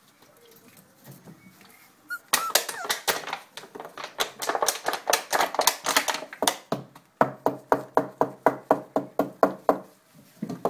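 Empty plastic drink bottle crackling as it is squeezed and shaken. It starts about two seconds in and ends in an even run of crackles, about four a second, near the end.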